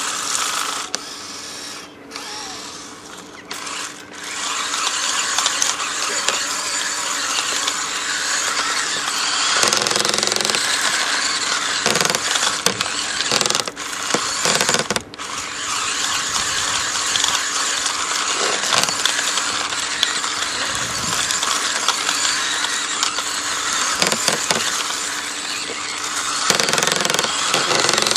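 Electric remote-control car running: motor and gear whine with a dense mechanical buzz, easing off briefly a couple of times in the first few seconds and cutting out for moments a little later before running on.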